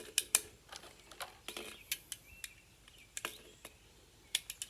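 Cartridges being pressed into a Sten Mk2's 30-round magazine: a scatter of sharp, irregular metallic clicks as the rounds are handled and pushed into the magazine.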